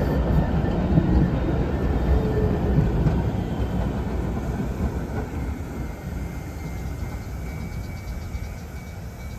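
Kaohsiung Light Rail tram running on its track, a low rumble that grows steadily fainter as it moves away.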